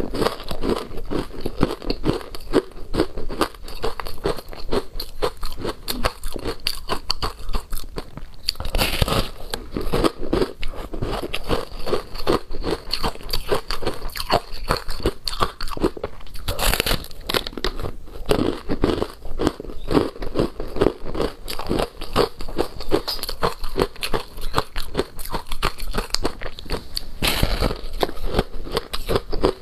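Close-miked crunching and chewing of a mouthful of frozen passion fruit ice: a fast, continuous stream of icy crunches, with a few louder crunches about 9, 17 and 27 seconds in.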